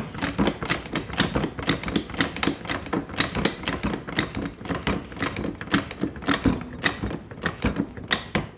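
3-ton hydraulic floor jack being pumped by its handle: quick metallic clicks and clacks, several a second, as the saddle rises to maximum extension. The replacement hydraulic ram unit is lifting properly, so the repair has worked.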